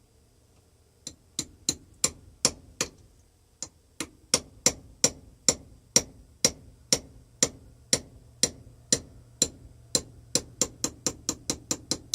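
Hammer striking a steel pin punch, driving a tight pin out of a bench vise screw: a long run of sharp, ringing metal-on-metal taps, about two or three a second at first and quickening to about four a second near the end.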